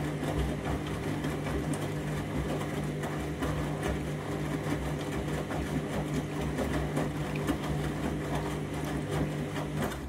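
Candy front-loading washing machine tumbling an absorbent load in its rinse. The drum motor hums steadily while water and wet laundry slosh and splash inside the drum.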